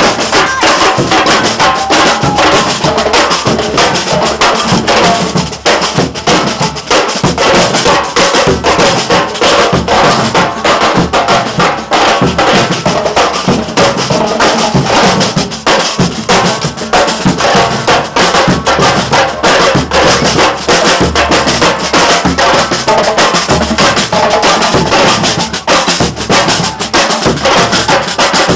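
Percussion ensemble drumming a fast, dense rhythm on bass drums, snare drums and small hand percussion, without a break.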